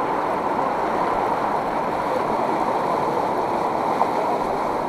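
Fast-flowing river water rushing steadily, with a single brief click about four seconds in.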